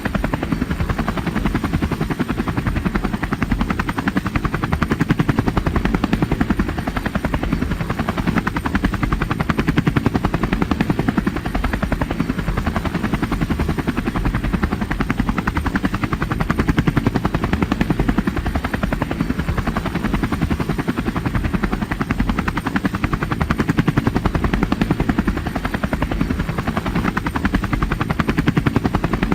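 Helicopter flying, its rotor blades beating in a fast, steady chop with a continuous engine drone.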